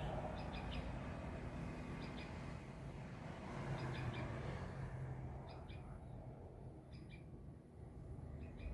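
Sooty-headed bulbul calling: short high chirps in quick clusters of two or three, repeating about every second and a half, over a low steady background rumble.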